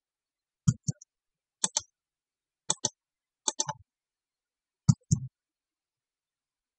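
Computer mouse and keyboard clicking: five quick pairs of sharp clicks, about a second apart, as points are picked and a command is typed.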